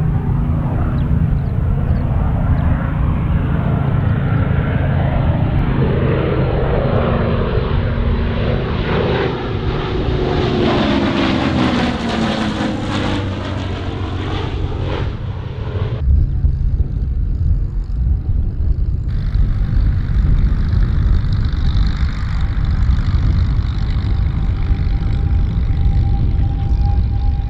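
P-51D Mustang's Merlin V12 engine and propeller in a low pass: the howl builds as the fighter approaches and drops in pitch as it goes overhead. About two-thirds of the way in it cuts to the same aircraft on the ground, engine running steadily.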